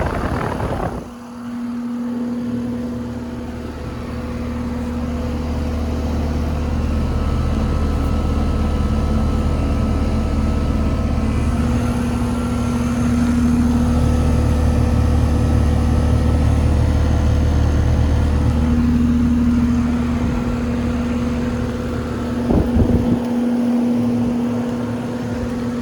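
2024 Carrier air conditioner running just after start-up: a steady hum with low fan rumble that builds over the first several seconds. A brief clatter comes near the end, after which the low rumble drops off.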